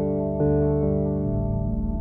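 Behringer DeepMind 12 polyphonic analog synthesizer playing sustained keyboard-like chords, with new notes struck about every half second. A lower bass note enters a little over a second in.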